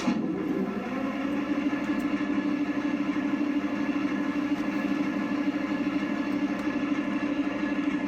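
RC tank sound unit playing a simulated tank engine, rising in pitch over the first second and then running steadily.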